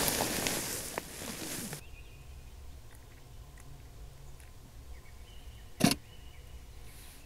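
Close crinkling and rustling of sleeping-bag and tent fabric that cuts off sharply after almost two seconds, leaving quiet open-air ambience with a few faint high chirps and one sharp click near the end.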